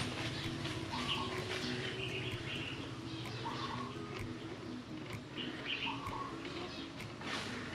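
A bird calling: a short call repeated about every two seconds, three times, over a steady low hum.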